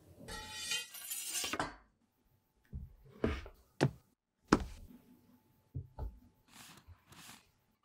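Handling of a cardboard phone box on a tabletop: a squeaking scrape at the start, then several sharp knocks and taps as the box is tipped on edge and set down. Near the end a knife blade makes two short slicing strokes through the box's seal sticker.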